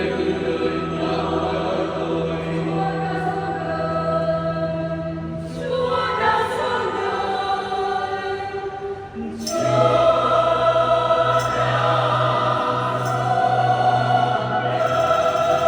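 Parish choir singing a Vietnamese Christmas carol in long held chords over steady low notes; a new, louder phrase begins about nine and a half seconds in.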